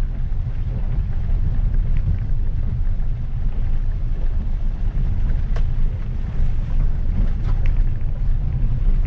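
Maruti Suzuki Ignis heard from inside the cabin, driving in second gear on a rough wet road: a steady low rumble of engine and tyres, with a few faint ticks.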